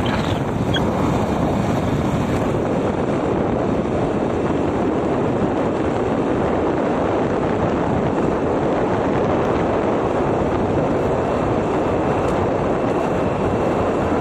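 Steady rush of wind and road noise from a vehicle travelling at speed along a concrete highway, with wind buffeting the microphone.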